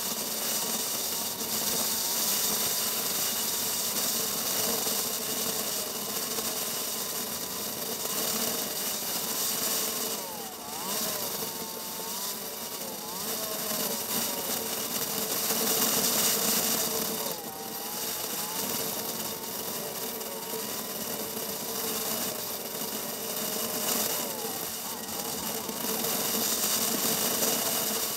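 Motorcycle engine running under way, its pitch rising and falling as the bike slows and speeds up, over a steady rush of wind noise.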